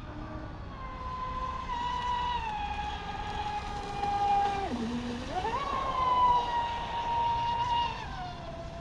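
Pro Boat Sonic Wake V2 RC speedboat's brushless electric motor at speed, a high whine that drops sharply about five seconds in as the throttle is let off, then climbs straight back up and falls again near the end.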